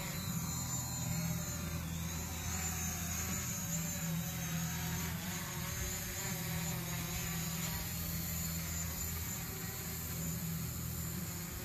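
Small folding quadcopter drone's propellers buzzing steadily as it takes off and climbs, the pitch wavering slightly as the rotor speed changes.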